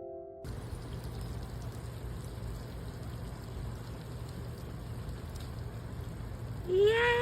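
Steady hiss with a low hum, then near the end one drawn-out cat meow that rises and then falls in pitch.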